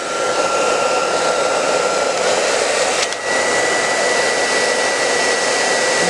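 Handheld hair dryer blowing steadily. About three seconds in there is a click and the motor whine comes back higher as the dryer is switched from low to high.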